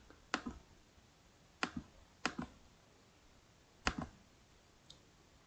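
Four sharp clicks of a computer mouse button, each a quick press-and-release, spaced irregularly over about four seconds, the last the loudest, with a faint tick just after.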